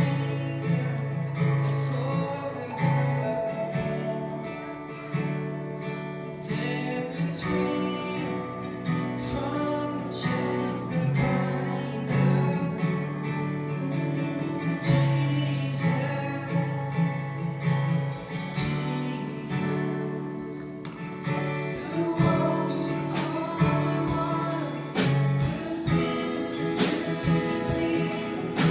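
Live congregational worship music: a strummed guitar accompanying singing.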